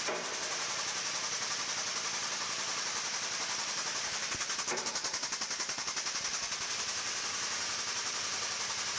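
Air-over-hydraulic pump of a Redline TR1500 trike lift table running on shop air as it raises the table: a steady hiss with a fast, even chatter, strongest in the middle.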